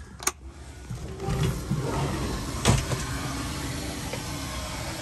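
A wall switch clicks, and about a second later a small electric motor starts and runs steadily with a hum and hiss, with another sharp click partway through.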